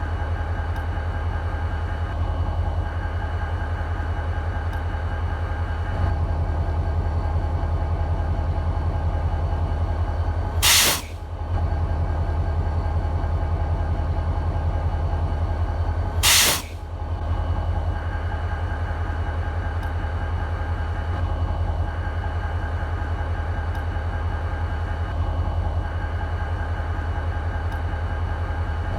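EMD SD40-2 locomotive's 16-cylinder two-stroke diesel idling with a steady, evenly pulsing low drone. Two short, loud blasts of air hiss break in, about 11 and 16 seconds in.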